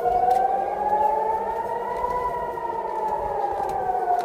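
Civil-defence siren wailing, one slow rise in pitch to a peak about two seconds in and then a fall: an air-raid warning.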